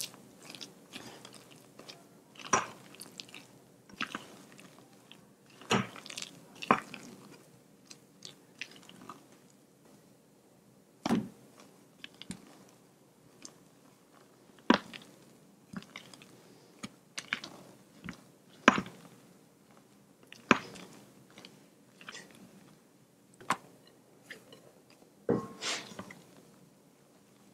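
A spatula folding whipped egg whites into a grated-carrot batter in a stainless steel bowl: soft wet squelching of the batter, broken every few seconds by a short, sharp knock of the spatula against the metal bowl, about nine in all.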